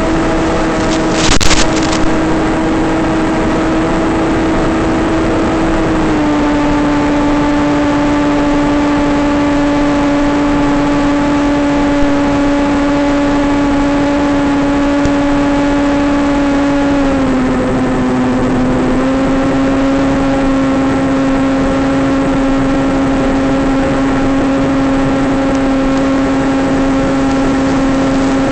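Electric motor and propeller of a small flying-wing model plane droning steadily in flight, stepping down in pitch twice and then rising slightly as the throttle changes. A brief crackle comes about a second in.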